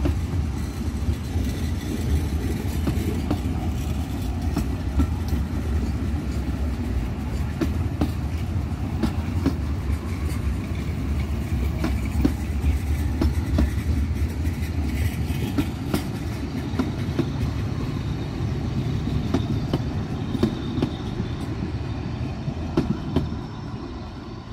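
Narrow-gauge railway coaches rolling past close by: a steady low rumble with irregular sharp clicks of the wheels over rail joints, dropping away near the end as the last coach goes by.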